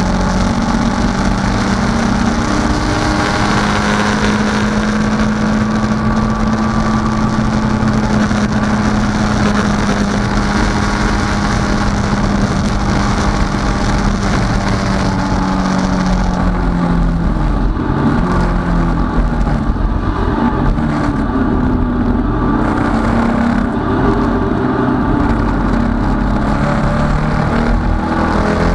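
Datsun 510 race car's inline-four engine, heard from inside the cabin, running hard at a steady pitch. Just past halfway the pitch falls, then rises and dips repeatedly, and the high hiss of wind drops away.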